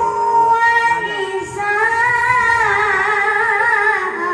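A child reciting the Quran in the melodic qiroah style through a PA sound system, holding long ornamented notes with a wavering vibrato. One phrase ends about a second and a half in, and after a short breath another long phrase follows.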